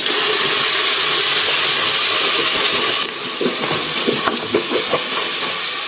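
Fresh milk poured from a bottle into a hot steel pot of ghee-toasted vermicelli, hissing and sizzling loudly as it hits. The hiss eases about three seconds in and goes on more quietly, with small crackles.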